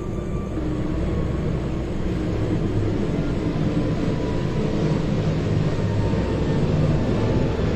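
Background music: a steady, low droning passage with no speech over it.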